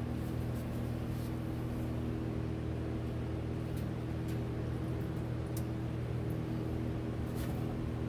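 A steady low mechanical hum holding several fixed pitches, with a few faint light clicks and ticks scattered through it.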